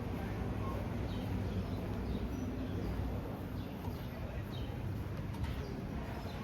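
Steady low rumble of wind and outdoor background noise, with a few faint, short bird chirps from about halfway through.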